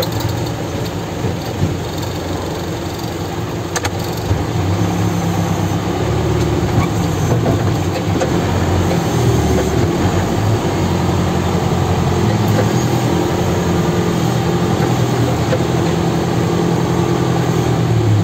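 Diesel engine of an ELEX81A backhoe loader running as the front loader bucket is raised and lowered, working harder from about four seconds in, with heavy rain pouring down around the cab.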